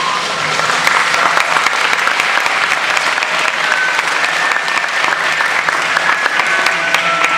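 Audience applauding: many hands clapping in a dense patter, growing fuller about a second in, with a few voices among it.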